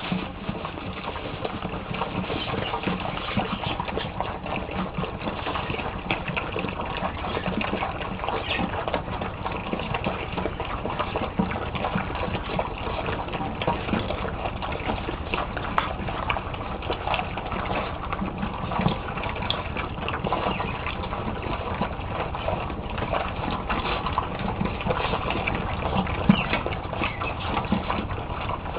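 A litter of puppies eating together: a steady mass of small wet chewing, lapping and slurping clicks.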